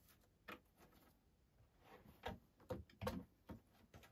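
Faint handling knocks and clicks as a speaker horn is worked into its cutout in a wooden speaker cabinet's baffle, a few louder taps about two to three and a half seconds in.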